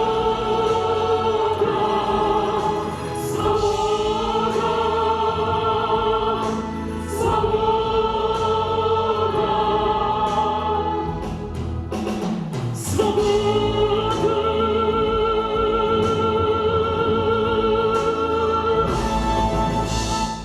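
Rock-opera finale: several voices hold long sung notes with vibrato, four in a row, over band accompaniment with cymbal crashes.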